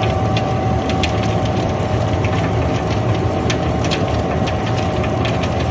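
Sawdust pellet mill running steadily: a loud, constant machine drone with a steady whine above it, and scattered sharp ticks and clicks throughout.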